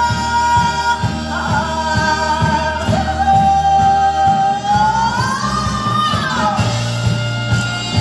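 Korean traditional orchestra music: a held melody line that bends and slides in pitch over a steady low beat.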